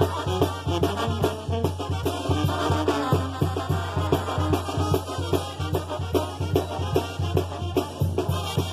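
Brass band music with a steady drum beat, played for dancing.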